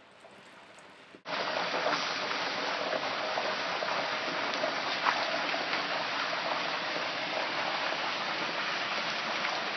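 Turkey deep-frying in a pot of very hot oil, the oil bubbling and sizzling hard in a steady hiss that starts suddenly about a second in.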